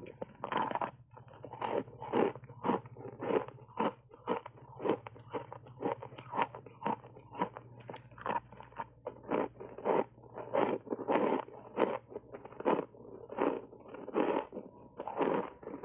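Dry block ice coated in matcha and milk powder being bitten and chewed close to the microphone: steady crisp crunches, about two a second.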